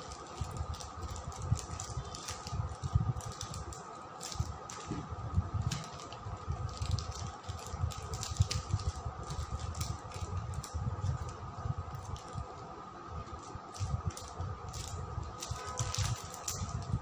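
Hands pressing and dabbing a clear plastic sheet over glued tissue paper on an MDF board: irregular crinkling of the plastic with soft, dull taps from the palms. Near the end the sheet is peeled off with a louder crinkle.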